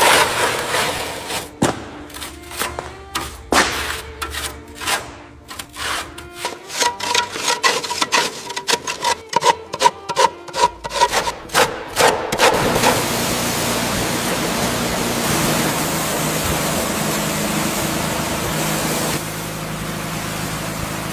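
Workshop restoration work: a quick, irregular run of scraping, rubbing and knocking strokes, then a little past halfway a steady loud hiss with a low hum from a machine running.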